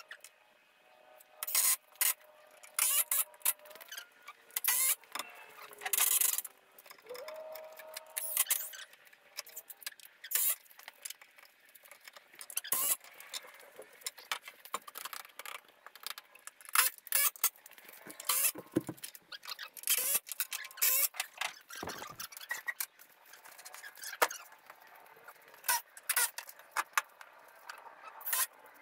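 Carpentry work on a wooden frame: irregular short, sharp bursts and clatter, about twenty of them, as lumber is handled and fastened.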